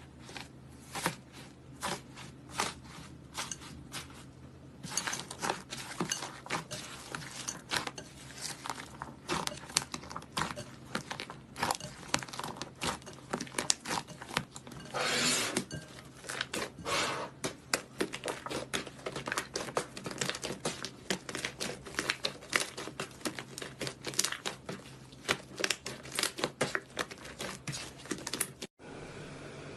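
Crunchy slime being squeezed and pressed by hand, giving dense, irregular crackling and popping with a louder run of crackles about halfway through, over a faint low hum. The sound cuts out briefly near the end.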